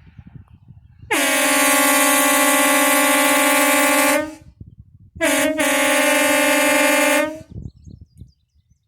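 WOLO air train horn kit sounding two long blasts of a chord of several steady tones: the first about three seconds long, then a pause of about a second, then a second blast of about two seconds that stutters briefly just after it starts.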